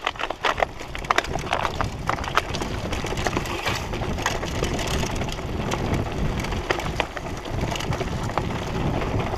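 Mountain bike descending a rough dirt and stone singletrack: tyres crunching over the ground and the bike rattling, with many sharp clicks and knocks over a steady low rumble.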